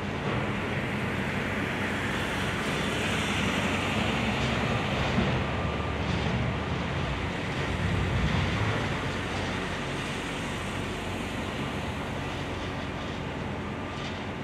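Heavy diesel excavator engines running during bridge demolition. The engines give a steady low drone under machinery noise that swells about a third of the way in and again a little past halfway, with one short sharp knock about five seconds in.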